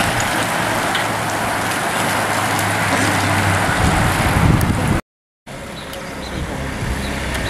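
A pack of road racing bicycles rolling past, a steady rush of tyres and wind on the microphone. About five seconds in the sound cuts out for half a second, then comes back as a steadier rush with a low, even engine hum from a lead motorcycle.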